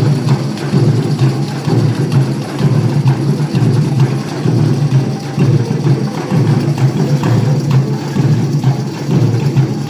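A band playing music at rehearsal, with drums and percussion keeping a steady pulsing beat over a heavy low end.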